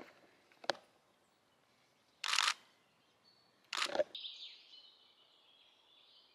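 SLR camera shutter clicks: one short click under a second in, then two louder clacks about two and four seconds in. Faint bird calls follow near the end.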